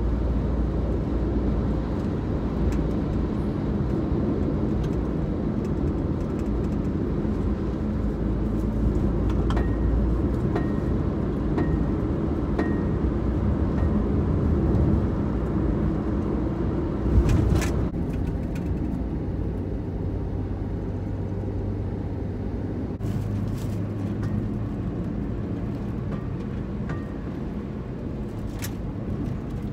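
Road and engine noise inside a moving car's cabin, with a run of faint short beeps about once a second near the middle and a brief loud knock a little past halfway. After the knock the noise drops to a lower, steadier hum.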